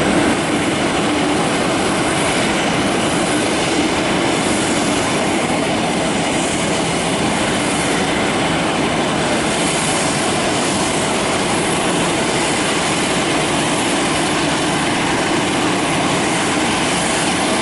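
Boeing 747-400's four jet engines running steadily at taxi power as the airliner rolls along the taxiway.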